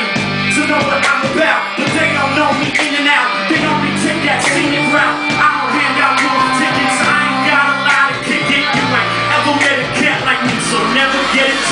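Loud live band music: a lead vocalist on a microphone over electric guitar, sustained bass notes and a steady drum beat.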